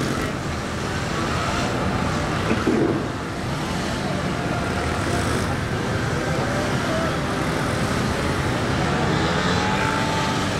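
Honda VTR250's V-twin engine revving up and down as the motorcycle accelerates, brakes and turns tightly through a gymkhana course, its pitch rising and falling again and again.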